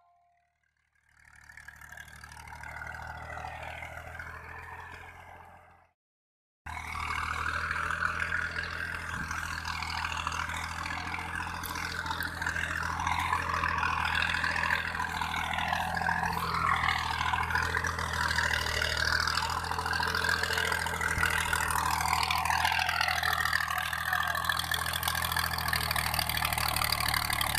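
FIAT 480 tractor's three-cylinder diesel engine running under load as it pulls a tine cultivator through ploughed soil. It swells and fades over the first few seconds, cuts out briefly about six seconds in, then returns louder and close up, running steadily with small shifts in its note.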